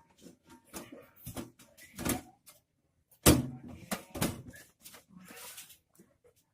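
Irregular knocks and clicks, the loudest about three seconds in, with a short rustle or scrape near the end.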